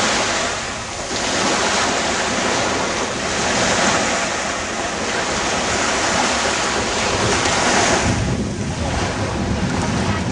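Small waves breaking and washing onto a sand beach, with wind buffeting the microphone.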